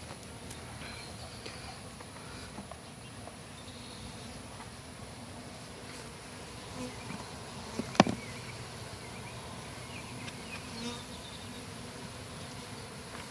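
Honey bees buzzing steadily in a large number around an opened hive, with a single sharp knock about eight seconds in.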